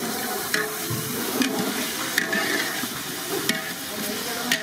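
Open wood fire burning under large cooking pans: a steady hiss with scattered sharp crackles about once a second.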